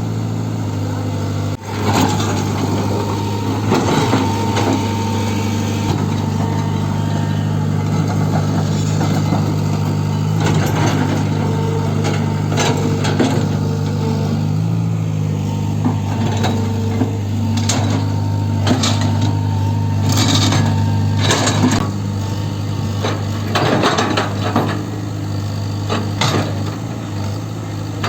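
Tata Hitachi Zaxis 120 excavator's diesel engine running steadily, with repeated sharp knocks and clanks over it.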